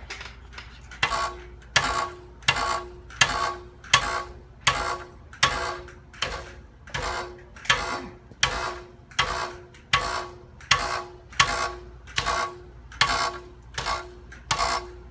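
Catalytic converter heat shield being tapped about twenty times at a steady pace, each hit giving a short metallic rattling ring. The shield is loose on its mount even though its bolt is tight.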